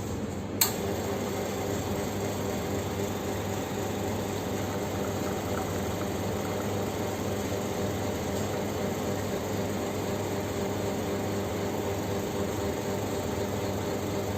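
Coffee machine running with a steady hum, a sharp click about half a second in, after which it runs a little louder.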